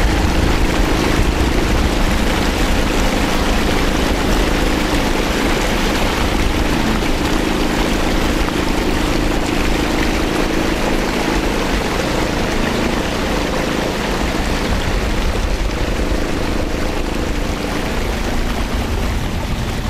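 A small boat's motor running at a steady speed, with a hum that fades slightly near the end and the steady rush of water around the hull.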